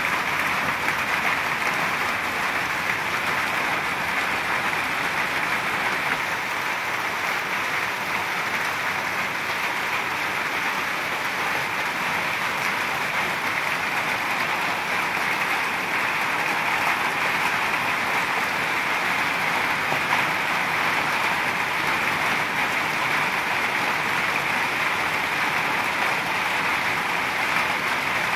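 Steady rain falling on tent fabric, with rainwater running off its edge in streams.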